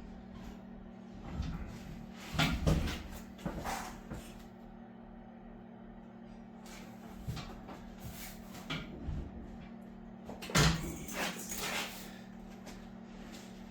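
Scattered knocks and clunks of objects being handled and set down, a few at a time, over a steady low hum. The loudest knock comes about three-quarters of the way through.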